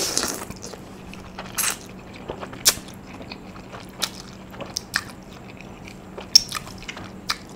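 Close-miked eating of Korean black bean noodles: chewing with scattered wet mouth clicks and smacks, and a longer noisy slurp-like sound right at the start.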